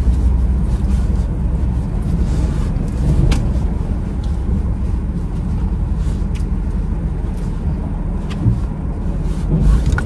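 Steady low rumble of a car running, heard from inside the cabin, with a few faint small clicks.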